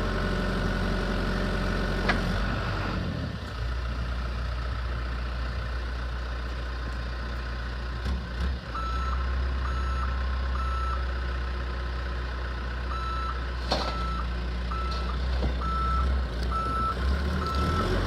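Bell 315SJ turbo backhoe loader's diesel engine running with a steady low drone, its note dropping about three seconds in, while its reversing alarm beeps about once a second from about halfway through, with a short break. Two sharp clunks, one early and one past the middle.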